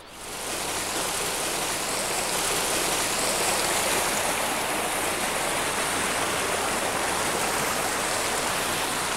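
Mountain stream rushing over small cascades between mossy boulders: a steady, even rush of water that fades in over the first second.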